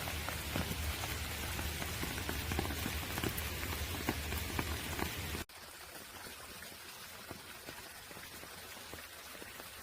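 Light rain falling, an even hiss with many small drop ticks. About halfway through it cuts suddenly to a quieter patter of rain.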